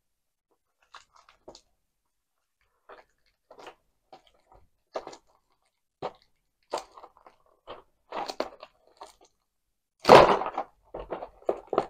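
A sealed miniatures box being opened by hand: scattered crackles and crinkles of packaging that come thicker as it goes, with a louder burst about ten seconds in.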